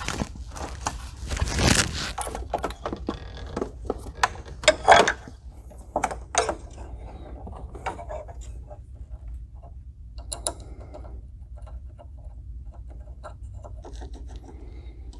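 Hands working a rubber hose around the radiator hose in a car engine bay: irregular scrapes, rubbing and small clicks and knocks, with a louder scrape about two seconds in and a few sharper knocks around five and six seconds.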